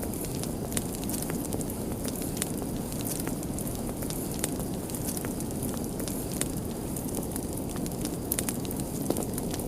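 Crackling fire: a steady low rush of flames with frequent, irregular sharp pops and snaps.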